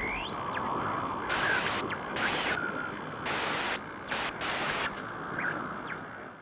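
GoPro logo intro sound effect: a steady airy hiss with a few faint whistling glides, fading out near the end.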